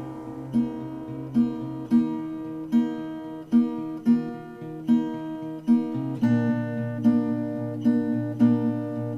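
Background music: an acoustic guitar picking a steady repeated figure, with no singing, and the bass notes change about six seconds in.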